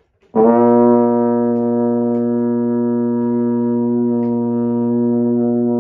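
Euphonium playing one steady low open note with no valves pressed, starting a moment in and held as a long tone for as long as the player's breath lasts.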